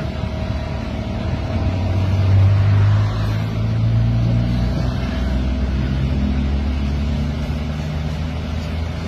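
A motor vehicle's engine running with a low hum, picking up about two seconds in and then settling to a steady run.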